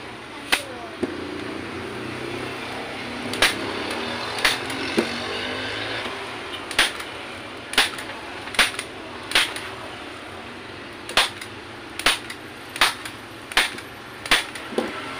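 Hand staple gun firing staples through a vinyl seat cover into the plastic base of a scooter seat: about fifteen sharp snaps, roughly one a second and some in quick pairs. The vinyl rustles as it is pulled taut between shots.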